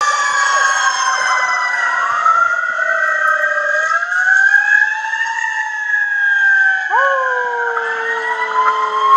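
Emergency-vehicle sirens wailing, several overlapping tones slowly rising and falling in pitch. About seven seconds in, a new tone cuts in, jumps up sharply and then slides slowly down.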